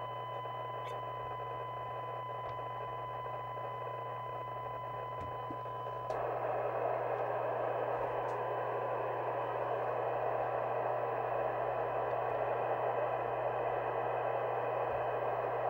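Harrier CBX FM CB radio's speaker playing a steady test tone from a signal generator, buried in heavy hiss with a low hum underneath. About six seconds in the hiss steps up louder as the test signal is turned down to 3 microvolts. It sounds so bad that a fault is suspected in the badly misaligned receive section.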